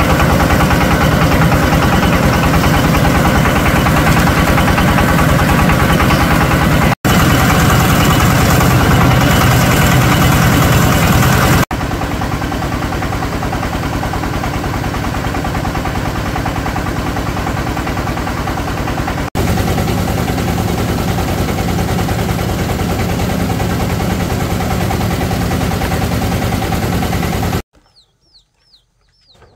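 A motor engine running steadily and loudly, in several stretches joined by abrupt cuts. Near the end it cuts off into quiet, with faint repeated chicken cheeps.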